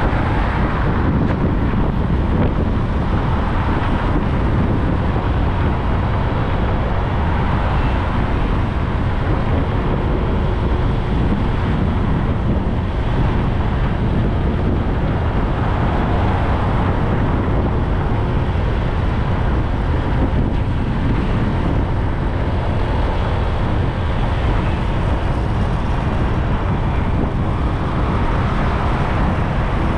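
Steady wind buffeting the microphone while riding along a main road, with traffic and road noise underneath.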